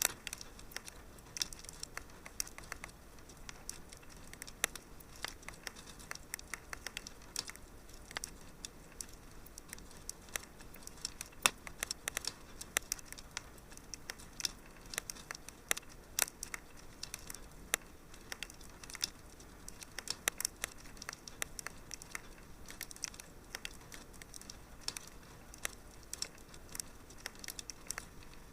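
Wood fire crackling in a fireplace: irregular sharp pops and snaps, several a second, over a faint steady hiss.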